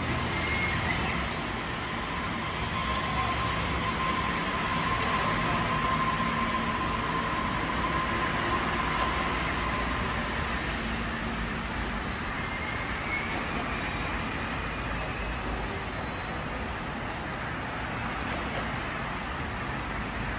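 Osaka Monorail 3000 series train on its rubber tyres pulling out of the platform and running away, a steady rumble with a faint motor whine in the middle that slowly eases off as it recedes.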